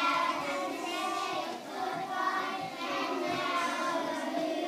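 A group of children singing together in chorus.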